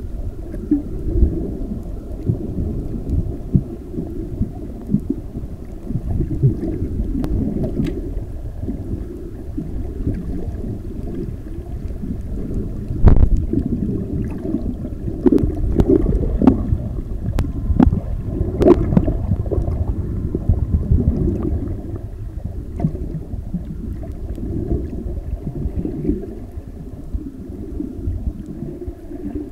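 Muffled underwater sound picked up by a submerged camera: a low, churning rumble of moving water with gurgling, and scattered sharp clicks, the loudest about thirteen seconds in.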